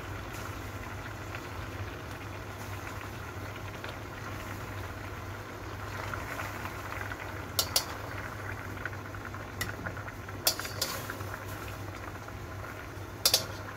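Water boiling in a wok with carrots and broccoli, over a steady low hum. Several sharp clicks of tongs against the wok come in the second half.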